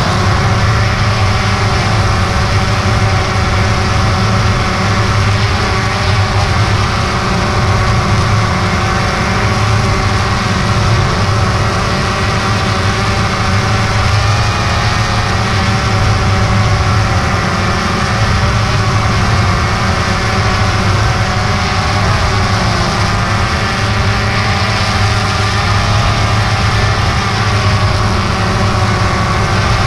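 DJI Phantom 2 quadcopter's four motors and propellers running steadily with the drone aloft, heard loud and close from the camera mounted on it: a constant buzzing hum whose pitch wavers slightly.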